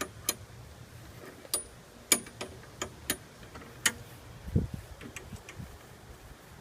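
Irregular sharp clicks and knocks from hands working on a lawnmower, about a dozen spread unevenly, with a dull thud about four and a half seconds in.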